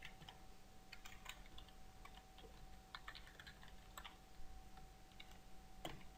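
Faint computer keyboard typing: irregular key clicks over a faint steady hum.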